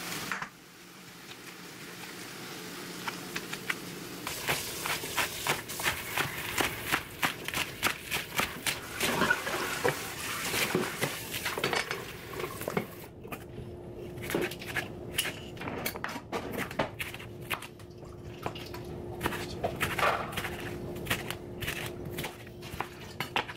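Ground turkey sizzling in a frying pan, then a kitchen knife chopping vegetables on a wooden cutting board in quick runs of repeated knocks.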